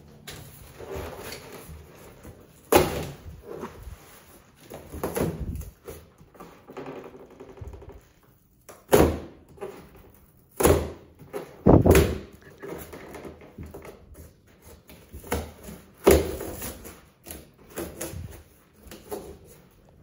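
Cardboard refrigerator carton being pried and torn open along its stapled side seam: rustling and ripping cardboard broken by about five loud, sharp cracks and knocks as the panel is pulled off the staples.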